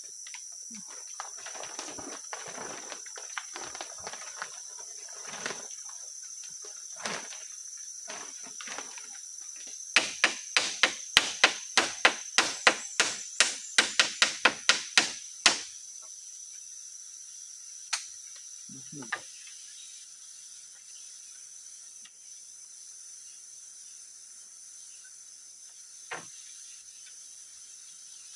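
Night insects chirring steadily on several high pitches, with scattered soft rustles and clicks. About ten seconds in, a rapid run of some sixteen sharp knocks, roughly three a second, lasting about five seconds, then a few single knocks later.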